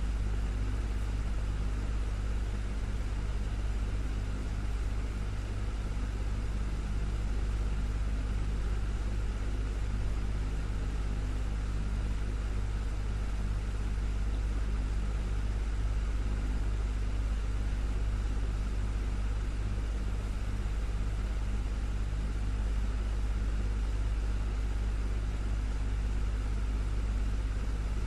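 Desktop electric fan running steadily, a constant low hum and rush of air with faint steady tones from its motor.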